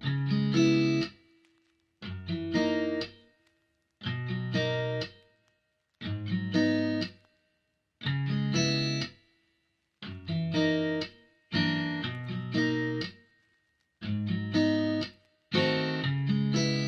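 Background music: guitar chords played in short phrases about every two seconds, each broken off by a brief silence.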